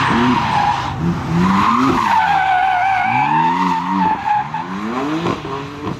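BMW M4's twin-turbo straight-six revving in repeated rising surges while the car drifts, with the rear tyres squealing on asphalt in a wavering squeal that is loudest through the middle.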